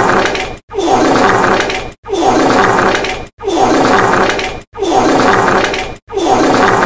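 The same fart sound played over and over, a new one about every second and a half. Each lasts just over a second, opens with a falling pitch and is cut off by a brief silence before the next.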